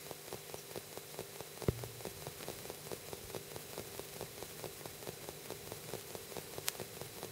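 Vinyl record surface noise: a stylus tracking the lead-in groove before the music starts, giving a faint, even crackle of small clicks over a light hiss, with one louder pop about a second and a half in.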